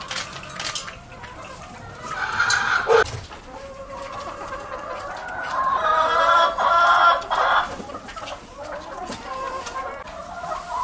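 A flock of chickens clucking, with short calls through the first half and a longer, louder stretch of calling about six to seven seconds in.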